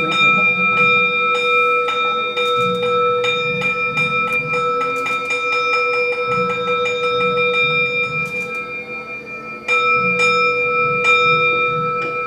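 Temple bell ringing with a long, held tone, while a run of sharp knocks comes faster and faster through the middle. The bell is struck again just before the ten-second mark, and the ringing swells back up.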